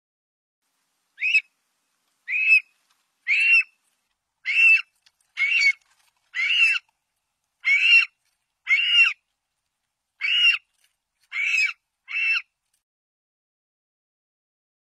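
Hoary marmot whistling: a series of eleven short, high-pitched call notes, about one a second, with silence between.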